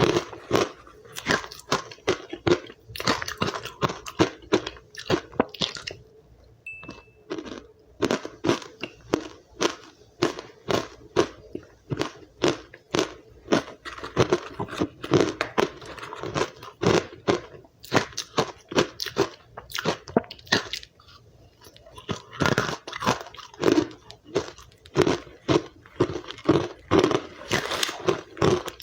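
Close-miked chewing of powdery frozen ice, many sharp crunches in quick succession with a brief pause about six seconds in.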